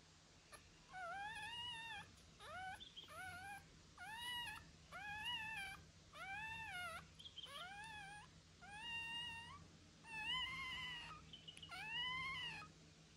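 Young puppy crying: a run of about a dozen high-pitched whimpering cries, each rising and falling in pitch, roughly one a second.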